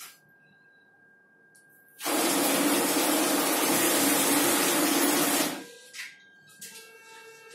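NCR ATM's cash dispenser running its test-cash cycle, picking and counting notes from the loaded cassettes to check that they dispense. A loud steady whirr starts suddenly about two seconds in and cuts off about three and a half seconds later.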